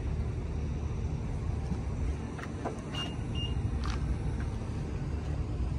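Steady low outdoor rumble with a few light clicks, and two short high beeps a moment apart about three seconds in.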